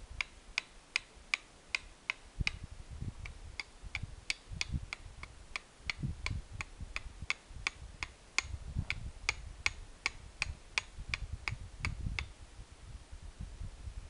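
Flint and steel: a hand-held steel striker struck against flint in a steady run of sharp clicks, about two to three a second, stopping a couple of seconds before the end. It is the striking of sparks onto char cloth to light a fire.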